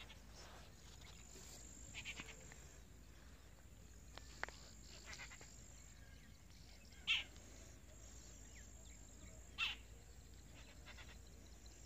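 Quiet outdoor ambience: a thin, steady high-pitched whine with a few short, distant animal calls. The two loudest calls come about seven and nine and a half seconds in.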